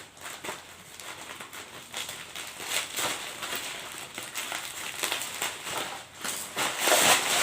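Plastic packaging wrap rustling and crackling as it is handled, in a string of irregular crackles with a louder rustle near the end.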